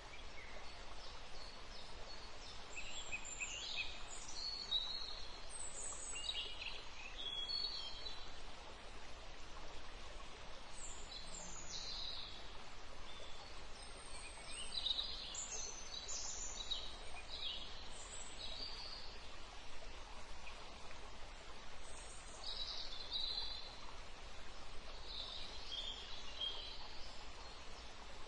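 Small birds chirping in short scattered calls over a steady background hiss.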